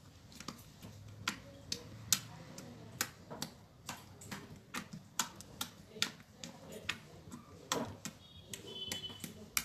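Creamy pudding slime being pressed and poked by hand, giving a run of sharp, irregular popping clicks, about two or three a second.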